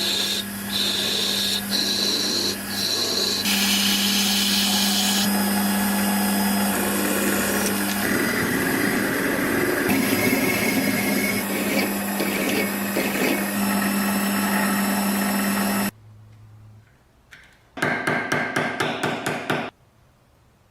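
Small electric power tool running steadily with a grinding noise, its motor holding one even pitch, then cutting out abruptly. About two seconds later comes a quick run of clicks lasting about two seconds.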